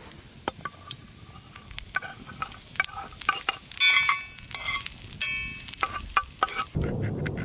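Onions and jalapeño sizzling in a cast iron skillet over campfire coals, with many sharp clicks and clatters as chunks of zucchini are dropped in and stirred around the pan. A few brief ringing notes sound around the middle.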